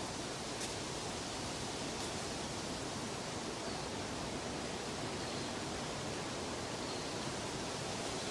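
Steady, even rushing noise with no change in level, with a few faint clicks in the first couple of seconds.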